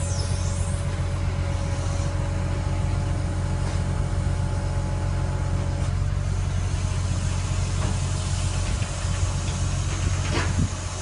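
Truck engine running steadily while driving the hydraulics of a TKA 12.700C truck-mounted knuckle-boom crane, a low hum with a steady whine above it. A short sliding squeak comes near the end.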